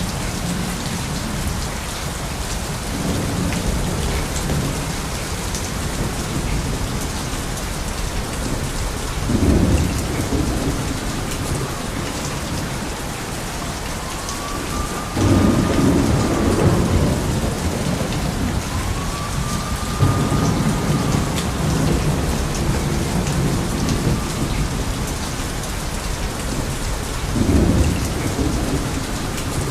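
Steady rain with rolling thunder: several low rumbles build and fade over it, the strongest breaking in suddenly about halfway through, others around a third of the way in, two-thirds in and near the end.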